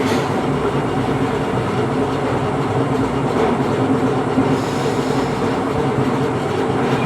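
A steady, loud mechanical hum and rumble with several low droning tones, unchanging throughout.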